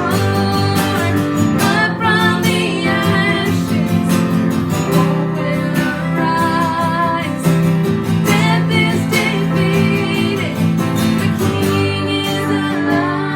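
A song: an acoustic guitar strummed with a singing voice over it.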